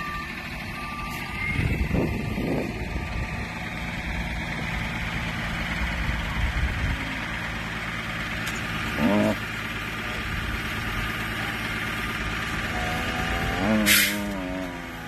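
A truck engine idling steadily, with a short pitched call, a voice or a cow, about nine seconds in and a sharp hiss near the end.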